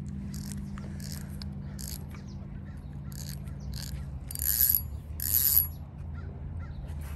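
Fishing reel being cranked to bring in a hooked shad, in short ratcheting bursts, with two louder, higher buzzes about four and five seconds in.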